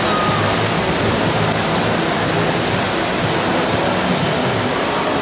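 Steady, even wash of noise in an echoing indoor pool hall during a freestyle race: swimmers' splashing and spectator noise blended into one continuous roar.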